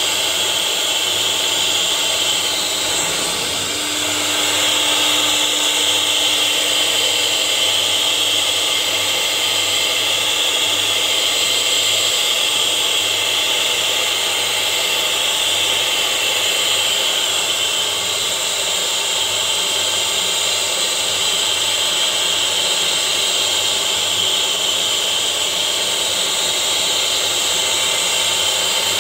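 CNC wood router's spindle running at high speed as its bit carves lettering into a wooden sheet: a steady high whine mixed with cutting noise, dipping briefly about three seconds in.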